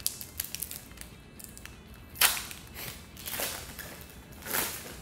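A foil Pokémon TCG Darkness Ablaze booster pack being torn open: light crinkling and small clicks, then a sharp rip about two seconds in and more ripping strokes near the end.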